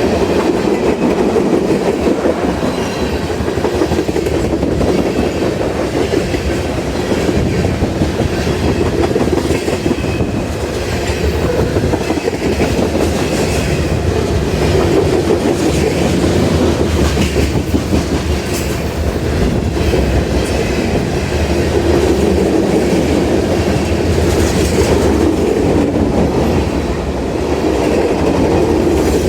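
CSX freight train's cars rolling past at speed: a steady loud rumble with wheels clicking over the rail joints.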